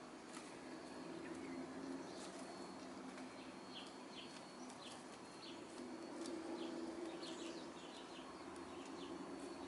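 Hens crooning softly in a low murmur that swells and fades. Small birds make quick high chirps throughout.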